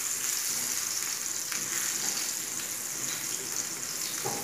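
Sliced sausage sizzling steadily in hot ghee in a nonstick frying pan, stirred with a silicone spatula, with a couple of faint clicks from the stirring.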